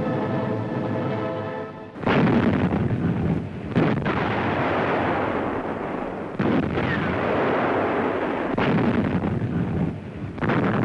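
Orchestral music breaks off about two seconds in as naval guns open fire with a heavy boom. Further shots follow about every two seconds over a continuous rumble.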